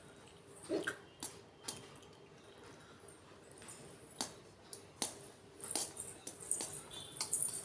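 A person hiccuping: about a dozen short, sharp hiccups at uneven intervals, coming closer together near the end.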